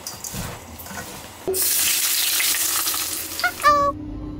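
Food frying in hot oil: a loud sizzling hiss starts suddenly about a second and a half in and cuts off abruptly near the end.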